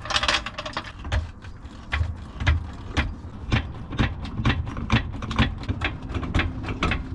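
Car jack being pumped to raise a van, a repeated clicking and clunking of about two strokes a second.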